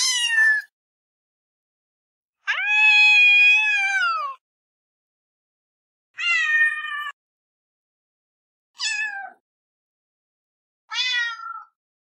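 Domestic cat meows: five separate calls with silence between them, one right at the start, a long one of about two seconds that drops in pitch at its end, then three shorter meows.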